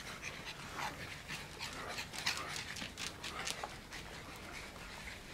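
A dog whimpering and panting in short, irregular bursts, faint.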